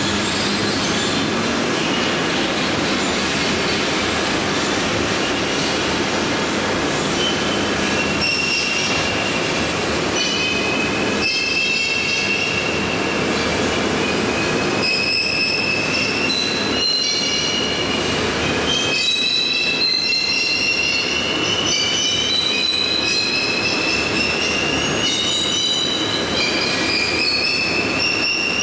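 High-frequency welded spiral fin tube machine running with a steady, loud mechanical noise. From about eight seconds in, high whining tones slowly rise in pitch, break off and start again lower every few seconds.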